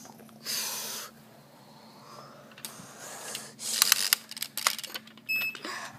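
Plastic toy bricks being handled, with a run of sharp clicks and knocks after a short burst of hiss; a brief electronic beep near the end.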